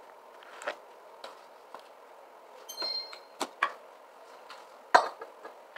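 Scattered short clicks and knocks, the loudest about five seconds in, with a brief high squeak about three seconds in.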